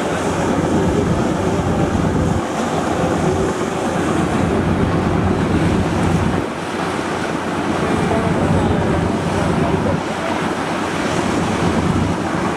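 Water rushing and splashing in the bow wave of a large multi-deck passenger river launch under way, over a low steady engine drone, with wind buffeting the microphone.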